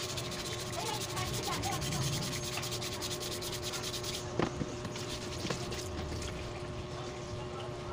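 Scooter grab bar being sanded by hand with quick back-and-forth scraping strokes, preparation for repainting. A little past halfway the strokes pause briefly for a couple of knocks, then resume.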